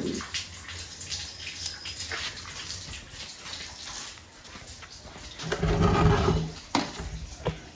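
A dog makes a short, pitched vocal sound lasting about a second, roughly three-quarters of the way in. Scattered light clicks and knocks come before and after it.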